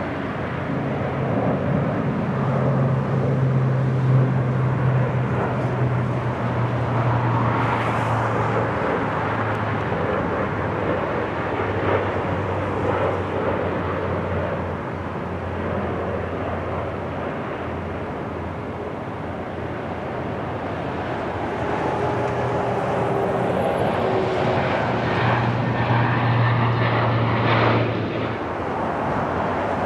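A Lockheed C-130 Hercules's four turboprop engines at takeoff power as it rolls down the runway and climbs out: a steady low propeller hum over a broad rush of engine noise. It eases off about halfway through and swells again near the end.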